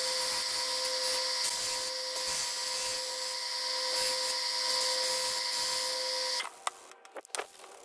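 A 1-inch belt sander running steadily with a constant hum and a high hiss while a small piece is sanded against the belt, cutting off suddenly a little past six seconds in, followed by a few faint clicks.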